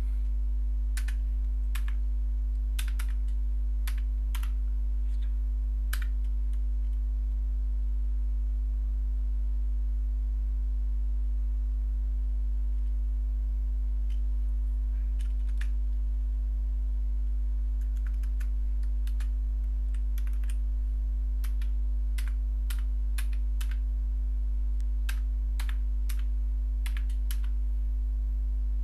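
Computer keyboard typing: clusters of separate keystrokes, with a pause of several seconds between them, over a steady low hum.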